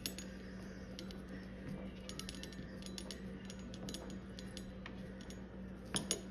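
Small scattered clicks and ticks of a Phillips screwdriver tightening a screw into the plastic housing of a Garmin TT15 mini dog-tracking collar, with a few louder clicks about six seconds in, over a steady low hum.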